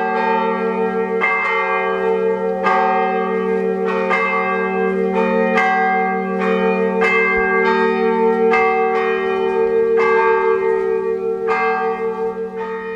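Church bells ringing: a slow, even run of strikes about every second and a half, each over a long ringing hum that carries on between strikes, growing quieter near the end.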